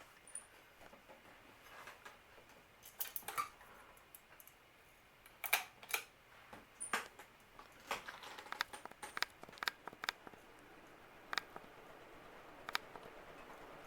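Palm Air ceiling fan running with a faint steady whir, with scattered sharp clicks at irregular intervals, the loudest about halfway through.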